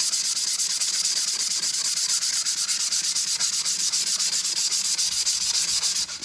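100-grit sandpaper on a sanding block being rubbed back and forth over a stainless steel tumbler in fast, even strokes, a steady rasping hiss that scuffs off the cup's factory finish. The sanding pauses briefly near the end.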